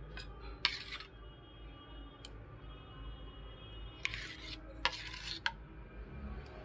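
Metal spoon scraping thick yogurt batter off against steel bowls as the batter is spooned into a greased steel tiffin bowl: three short scrapes, one about half a second in and two close together after about four seconds, with a few light clinks of metal.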